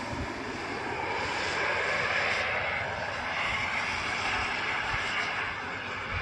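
KingTech turbine engine of an RC model Rafale jet running as the jet flies, a steady rushing noise whose highest part thins out about two and a half seconds in.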